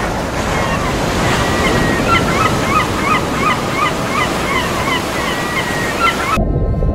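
Sea ambience of surf and wind, with birds calling over it in quick, repeated short calls. It cuts off suddenly about six seconds in, giving way to a low rumble.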